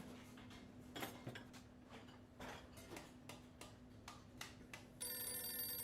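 Faint irregular clicks and taps, then about five seconds in a phone starts ringing with an electronic ringtone of several steady tones, the loudest sound here.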